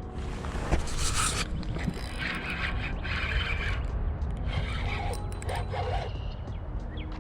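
Three bursts of close-up scraping and rattling, from the first second, from about two seconds in and from about four and a half seconds in, over a steady low rumble.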